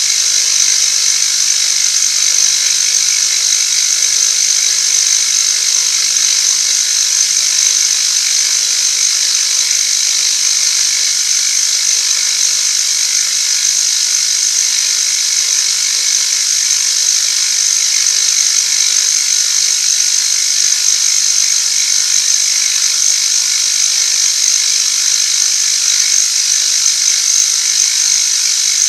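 Metalworking machine tool running steadily through a cut on a metal part, with a constant high-pitched cutting hiss over a faint motor hum.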